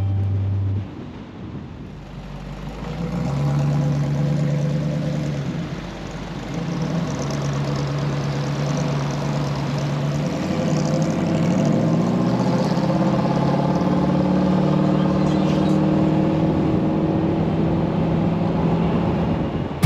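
Mk3 Jensen Interceptor's V8 roaring under acceleration, revving up about three seconds in, easing briefly, then climbing steadily in pitch as the car pulls hard.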